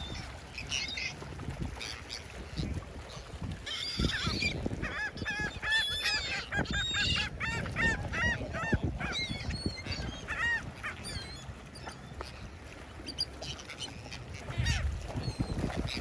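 A flock of gulls calling over one another, many short rising-and-falling calls, busiest in the middle of the stretch and thinning toward the end, over a low rushing background.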